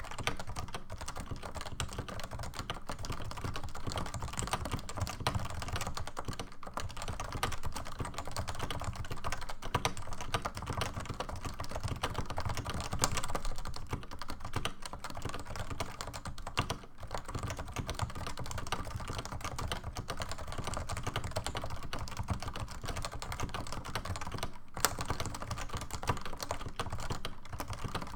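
Continuous fast typing on a stock Realforce keyboard with 55 g Topre electro-capacitive switches, the keys clicking in a rapid, unbroken stream.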